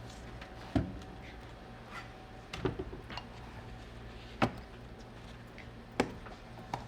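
A handful of separate sharp clicks and knocks of tools and parts being handled and set down, over a low steady hum.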